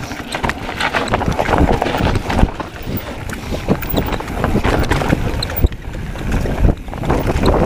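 Mountain bike riding fast down a dirt trail. Wind buffets the microphone with a low rumble, the tyres roll over the dirt, and the bike knocks and rattles sharply again and again over bumps.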